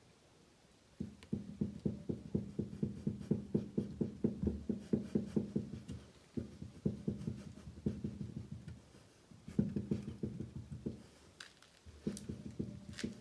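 Worn Renault Megane 3 shock absorber knocking as its piston rod is worked back and forth by hand: rapid dull knocks, about five a second, in several runs with short pauses. The knock is the sign of a worn shock absorber, the cause of the car's clunk when stopping.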